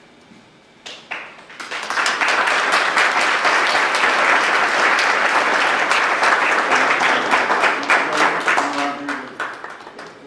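Audience applauding: the clapping starts about a second and a half in, holds steady and loud, then thins out and dies away near the end.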